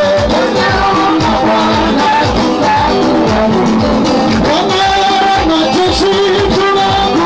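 Upbeat song with singing over a steady, loud drum beat.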